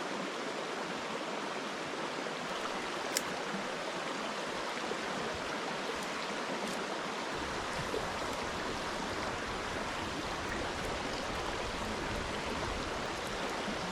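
Steady rush of flowing river water, with a single sharp click about three seconds in and a low rumble joining about halfway through.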